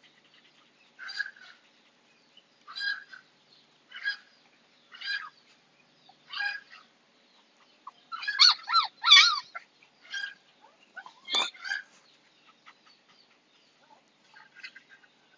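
Husky puppy whimpering in short high cries about once a second, breaking into a louder run of wavering cries about eight seconds in, then tapering off, while held down for a vaccine injection.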